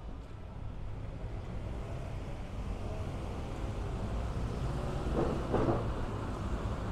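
City street traffic: a low rumble of passing vehicles that slowly grows louder, with two short louder surges near the end.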